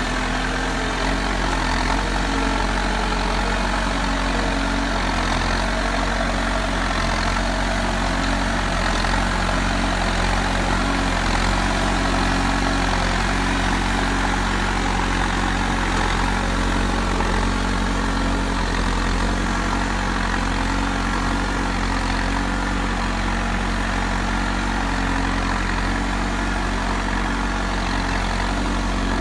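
Heavy diesel engine of a JCB construction machine running steadily at a low, even idle-like speed.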